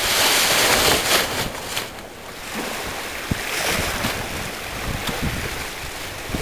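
Wind gusting across the microphone over water washing around a boat, loudest in the first two seconds.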